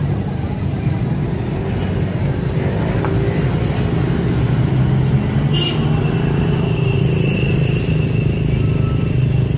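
Street traffic: cars and motorcycles running and passing in a steady low rumble. A short click comes a little past halfway, followed by a thin high tone that lasts a few seconds.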